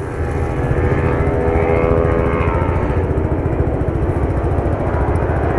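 Motorcycle engine running with a steady low rumble, its pitch swelling slightly and falling back about two seconds in.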